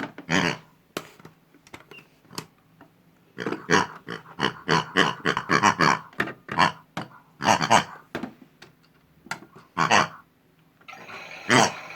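Pig oinking and grunting in short bursts of calls. About a second before the end a small motor starts a steady whir, the toy washing machine starting up.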